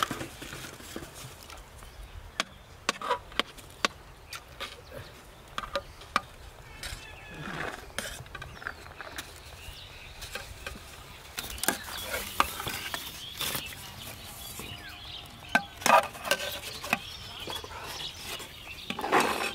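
Steel serving spoons scraping and clinking against large metal pots while rice and fish curry are ladled into styrofoam takeaway boxes, with the light knocks of the boxes being handled and closed. The scattered clicks and scrapes come at irregular intervals.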